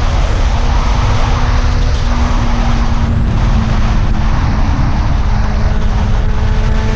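Motorcycle engine running at a near-steady pitch while riding, under a heavy low rumble of wind on the microphone.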